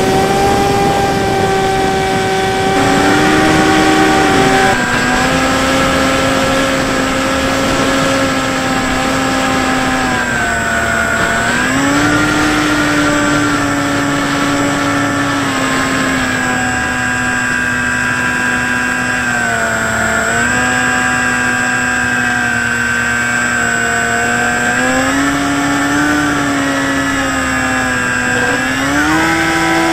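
Electric pusher motor and propeller of a Bix3 RC plane whining, picked up by an onboard camera; its pitch drops and rises several times as the throttle is changed, over a rush of wind noise.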